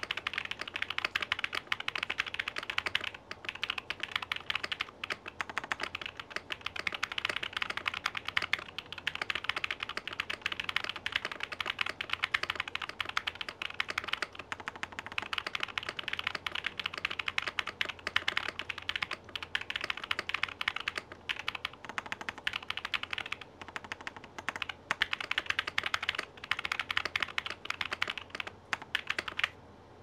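Fast continuous typing on a ZUOYA GMK67 mechanical keyboard with Zion Studios Peri Candy linear switches, modded stabilizers and custom keycaps: a dense run of key clacks with a few short pauses, stopping just before the end.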